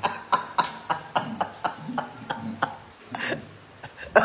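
Stifled laughter: a fast run of short breathy snickers a few times a second, with a little voice under it, easing off about three seconds in.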